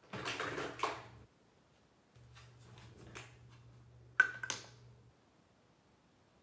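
Handling noise of a small plastic cosmetic tube: a rustle at the start, then a few small sharp clicks as its cap is worked off, the loudest about four seconds in.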